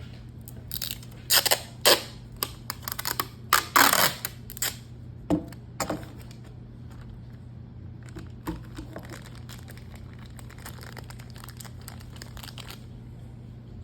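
Packaging crinkling and rustling as it is handled: a run of sharp crackles and crinkles for the first six seconds or so, then softer, sparser rustling. A steady low hum lies underneath.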